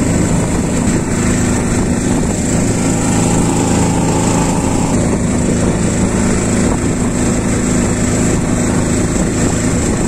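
Small boat's motor running steadily at constant speed, a loud, even drone with the splash and rush of water around the hull.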